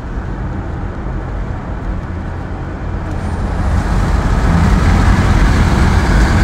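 Road and wind noise inside the cabin of a 2022 Tesla Model S under hard acceleration from about 40 to 80 mph. It is a steady rumble and hiss with no engine note, and it grows louder as the speed builds.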